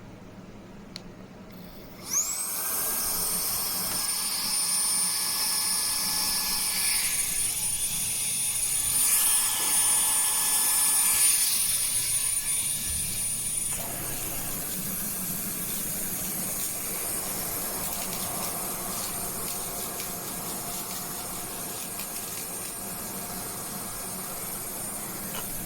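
Vax ONEPWR Blade 4 Pet cordless stick vacuum switched on about two seconds in, its motor spinning up fast to a steady high whine. About halfway through some of its tones drop out and it runs on a little quieter.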